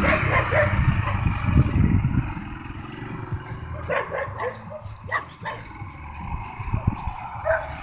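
Motorcycle engine running and pulling away, loudest in the first two seconds or so and then fading as the bike moves off. A dog barks a few times in the second half.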